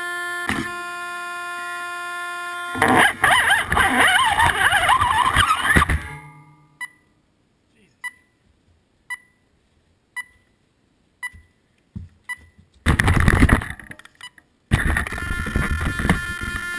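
An RC crawler's electronic speed control beeping: six short beeps about a second apart in near silence, the sign that the speed control has reset and will not arm. Louder mechanical whirring from the crawler comes before the beeps, again in a brief burst near the end, and steadily in the last couple of seconds.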